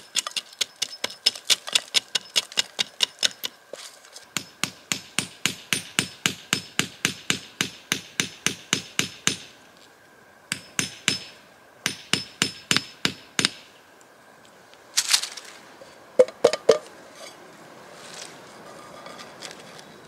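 Quick light strikes of a tool on a birch trunk, about four a second, in several runs with short pauses, tapping out a hole and a spout for collecting birch sap. A few harder single knocks come near the end.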